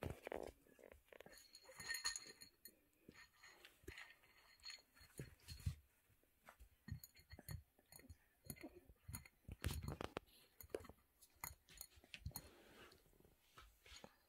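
English Bulldog puppy eating dry kibble from a bowl: faint, irregular crunching and chewing.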